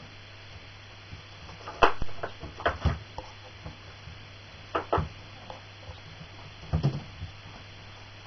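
Sharp knocks and clatters of toddlers handling wooden toys, a push-along walker with blocks and wicker baskets, in four short clusters about two, three, five and seven seconds in, the first the loudest, over a steady low hum.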